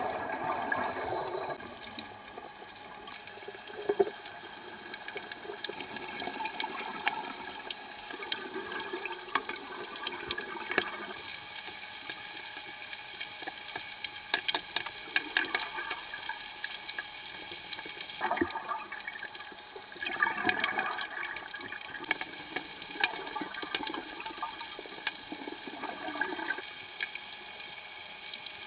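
Underwater recording of a scuba diver breathing through a regulator: bubbly gushes of exhaled air every few seconds, over a steady crackle of fine clicks.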